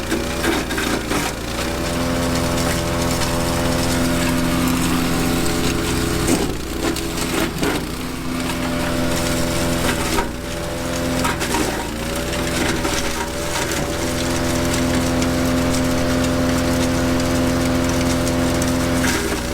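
Honda-engined branch chipper running at speed and shredding branches, with a crackle of splintering wood over the engine. The engine note sags briefly several times as wood is fed in and it takes the load.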